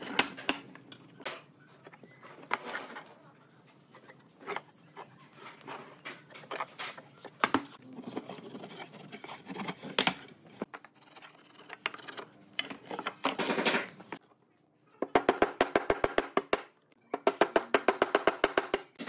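Hand tools working a pine board: scattered scrapes and light knocks, then near the end two runs of quick, even hammer taps, about ten a second, driving a nail into the board's edge.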